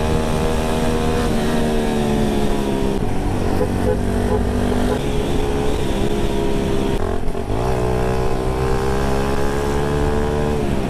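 Yamaha Vega Force Fi 115's single-cylinder four-stroke engine running under way. Its pitch drops a little in steps, dips about seven and a half seconds in, then rises again as the throttle comes back on.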